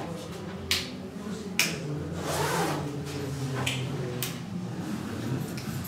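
Four sharp clicks or knocks at uneven intervals in a small echoing room, over a steady low background hum.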